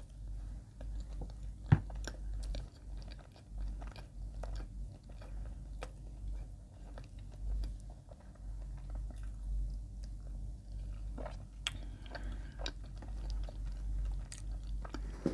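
Close-miked chewing of soft white bread spread with Lotus Biscoff speculoos spread: soft, sticky mouth clicks and smacks, with one sharp click about two seconds in, over a steady low hum.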